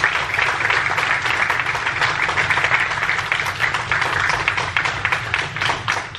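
A roomful of people applauding, a dense steady clatter of many hands clapping that starts to die away near the end.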